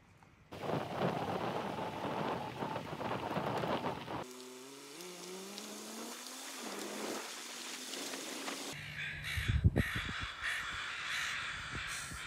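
A noisy rush, then a vehicle engine running on a gravel road with its pitch rising slowly, then a flock of crows cawing over the flats with a few low thumps.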